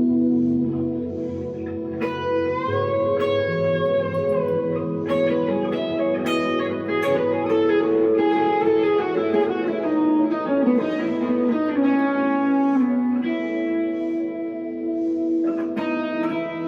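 1963 Fender Telecaster electric guitar played through a tube amp with delay and reverb: sustained single notes and chords, with a note bent upward about two seconds in and vibrato on held notes.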